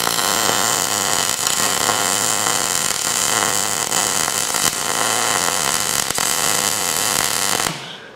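Electric welding arc crackling and hissing steadily as a seam is welded, filling a hole burned through the joint; the arc cuts off abruptly near the end.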